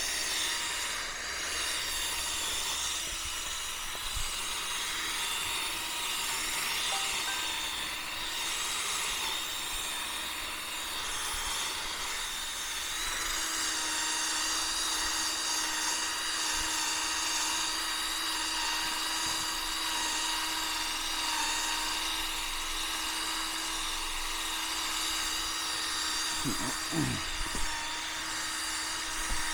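Cordless drill spinning a wire brush against a concrete floor, a steady scrubbing whine. The drill is scuffing the concrete so the threshold seal's glue will adhere.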